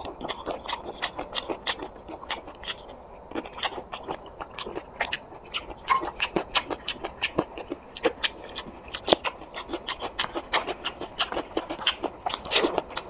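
Mouth sounds of someone eating curry and rice on a close microphone: chewing and smacking, heard as a dense run of quick clicks, several a second.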